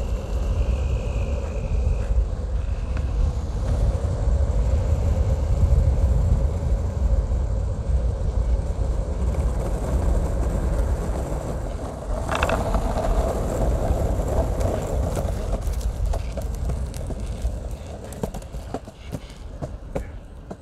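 Wheels rolling on asphalt, with wind buffeting the microphone, while moving along a road. The rumble eases off after about 16 seconds, and a run of clicks and knocks follows as the recording device is handled.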